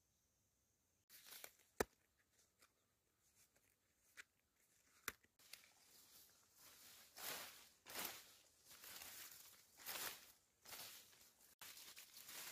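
Sweet potato vines being pulled and torn away by hand. Leaves and stems rustle and tear in a run of repeated swishes, with a few sharp snaps before them. It starts after about a second of near silence.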